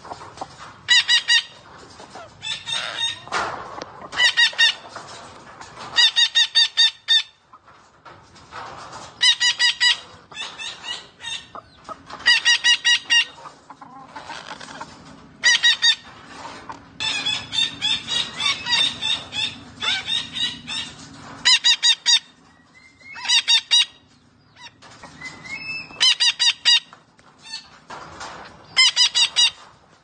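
Red-breasted parakeet calling: loud bursts of rapid squawking notes, a burst every two to three seconds, with a longer run of calls about two-thirds of the way through.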